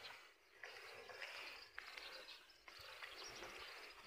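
Faint outdoor ambience: a low, even hiss with a few short, high chirps.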